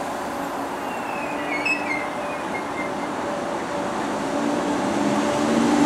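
Merseyrail Class 507 electric multiple unit rolling along the platform past the listener. A low steady hum comes in about four seconds in and grows louder toward the end.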